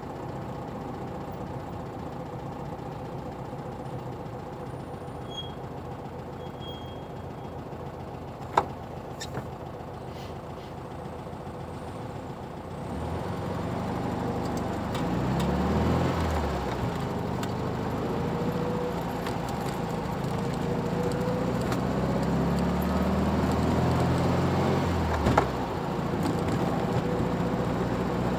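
Car engines idling at a standstill, then, about halfway through, pulling away: the engine grows louder and its revs climb and drop twice as it changes gear. A sharp click sounds about a third of the way in.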